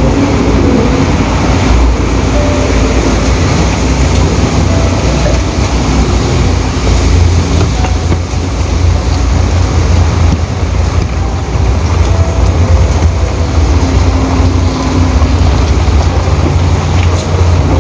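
Loud, steady low rumble of vehicle and road noise, with no clear breaks.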